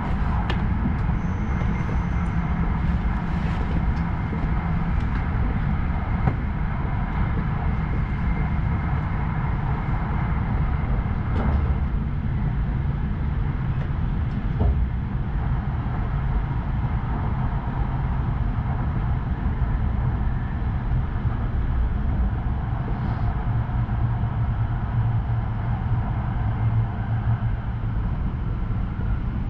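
Tohoku Shinkansen train running at speed, heard inside the passenger cabin: a steady low rumble and rolling noise with a faint steady whine.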